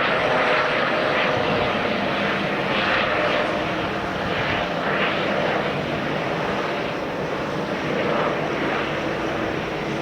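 Helicopter running steadily, a loud rushing engine and rotor noise that slowly gets quieter.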